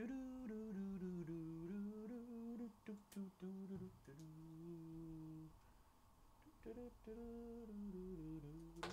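A man quietly humming a tune to himself, in two stretches of melody with a short break in between.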